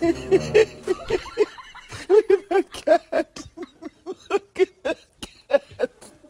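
Laughter: a long run of short, high-pitched snickering bursts, a few a second, tapering off near the end.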